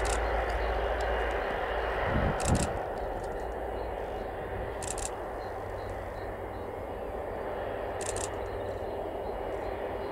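An Airbus A330-200's jet engines at low power as the airliner rolls along the runway, making a steady rushing noise. A low rumble fades out about two and a half seconds in, and three short high clicks sound a few seconds apart.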